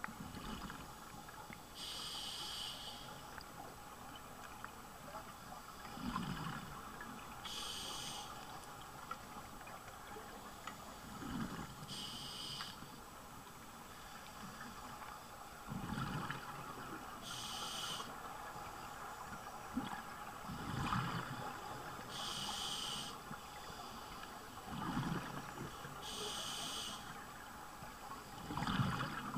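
Scuba diver breathing through a regulator underwater: a hiss of about a second on each inhale alternates with a low rumble of exhaled bubbles, about one breath every five seconds.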